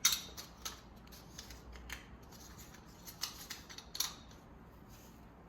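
Scattered light clicks and clacks of sink strainer parts being handled and fitted together, about five sharp ticks over a few seconds.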